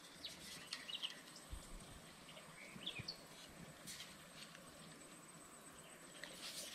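Near silence: faint outdoor ambience with a thin steady high tone and a few short, faint bird chirps about a second in and again near the middle, plus light clicks.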